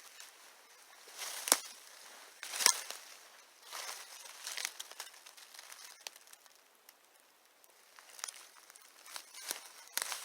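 Dry leaves rustling and crunching in short, uneven bursts, with two sharp snaps about a second and a half in and again a second later.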